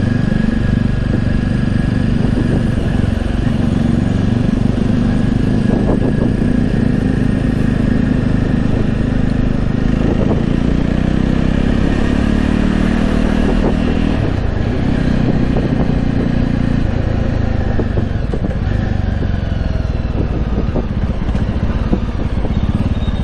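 Jawa motorcycle's single-cylinder engine running on the road, its pitch rising and falling as the rider changes gears and throttle, speeding up and then slowing down near the end, with a steady rush of road and wind noise.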